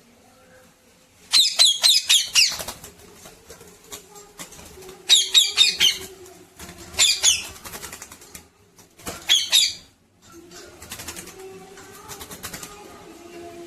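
Parrot giving four bursts of rapid, shrill squawking calls, each lasting about half a second to a second, spread over about eight seconds.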